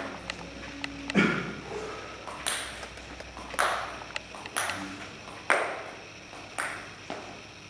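Celluloid-type table tennis ball bounced again and again, six sharp pings about a second apart, each with a short echo from the hall.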